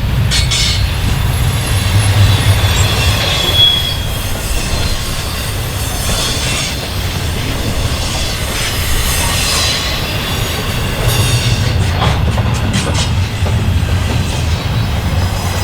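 Freight train cars rolling past with a steady low rumble, their wheels squealing at a high pitch, with a few sharp clacks from the wheels on the rails about half a second in and again near the end.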